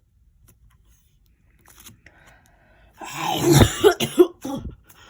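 A girl coughing several times in a short fit about three seconds in, which she puts down to allergies.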